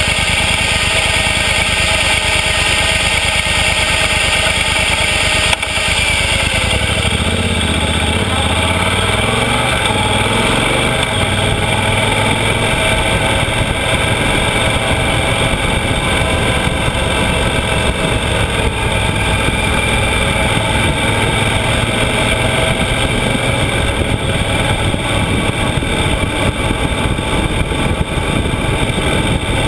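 Yamaha XT1200Z Super Ténéré's parallel-twin engine running under way, with wind and road noise. The engine pitch rises as it accelerates, starting about six seconds in, just after a brief click.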